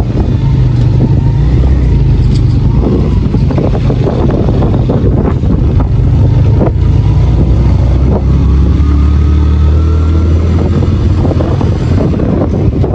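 Motorcycle engine running steadily as the bike rides along, with wind noise on the microphone; the engine note drops lower about two-thirds of the way through.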